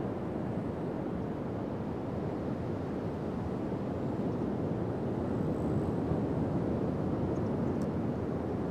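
Pacific Ocean surf breaking on a sandy beach: a steady low wash of waves that swells slightly around the middle.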